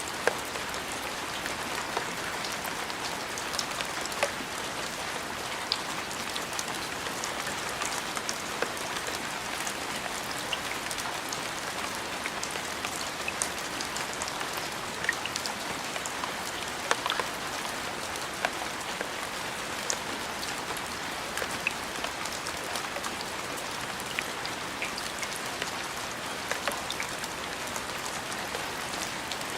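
Steady rain falling, an even hiss with many individual drops ticking sharply on a surface.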